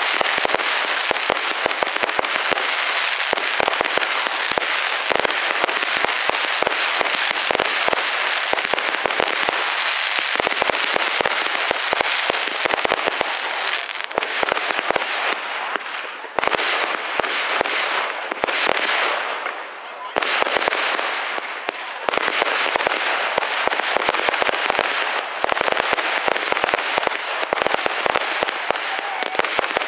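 Aerial fireworks bursting: a rapid, continuous run of bangs and crackling, easing off briefly a little past the middle before picking up again.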